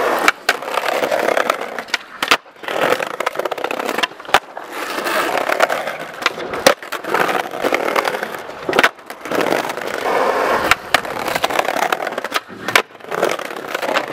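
Skateboard wheels rolling over brick paving and a concrete ramp, with sharp clacks of the board popping and landing about every two seconds.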